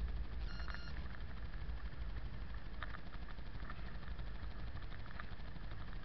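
Steady low rumble of a car's engine and tyres on a snowy road, heard from inside the cabin, with a short electronic beep about half a second in and a few faint clicks.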